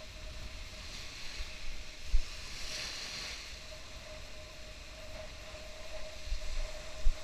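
Sea surf washing up on a sandy shore, with wind buffeting the microphone in low thumps. The wash swells about three seconds in, over a faint steady hum.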